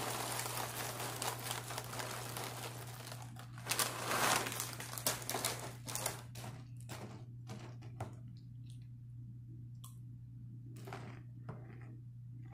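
Dry cereal poured from a plastic bag into a bowl: the bag crinkles and the pieces rattle for about six seconds, loudest near the middle as the bag is set down. After that only a few scattered clicks of a spoon in the bowl.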